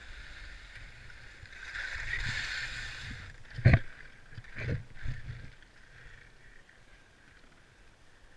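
Skis scraping and hissing across packed snow as the skier slows and turns, then a few sharp knocks, the loudest about three and a half seconds in, before it goes faint and steady.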